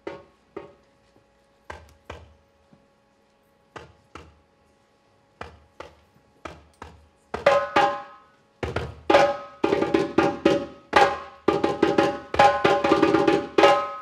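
Solo drum struck with a wooden mallet and the hand, each stroke ringing briefly. Sparse, spaced strikes for the first half, then from about seven seconds in a faster, louder, busier rhythm.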